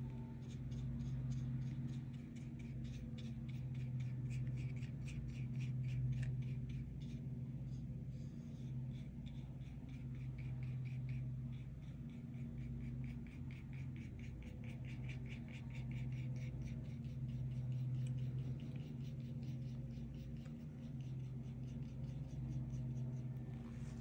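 A pen, pencil or brush scratching on paper in quick back-and-forth strokes, several a second, as in shading or filling in color, with short pauses, over a steady low electrical hum.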